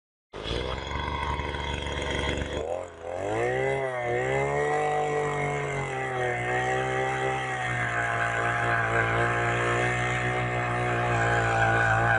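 Hand-held earth auger's 49.9 cc single-cylinder two-stroke engine running at low speed, then revving up about three seconds in. It settles at a high, steady speed while the auger drills into the soil, its pitch dipping and wavering slightly under the load.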